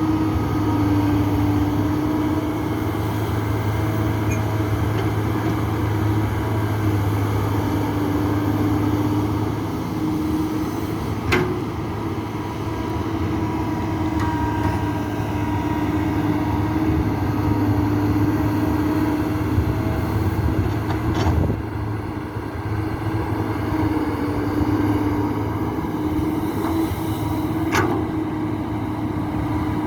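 Heavy diesel engine of an excavator running steadily as it loads soil into a dump truck, with three sharp knocks spread through it.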